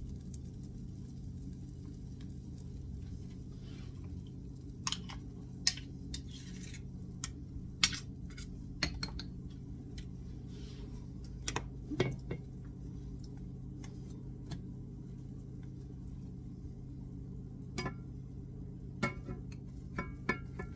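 Metal spoon and spatula clinking against the batter bowl and the nonstick frying pan: a scattering of sharp, separate clinks and taps, over a steady low hum.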